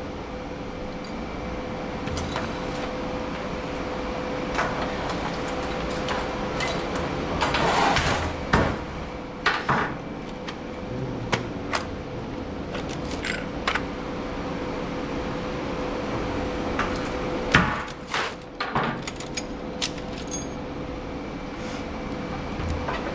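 Scattered clanks, clicks and rattles of metal parts and circuit boards being pulled apart and tossed during an e-waste teardown, with louder clattering crashes about eight seconds in and again near eighteen seconds, over a steady hum.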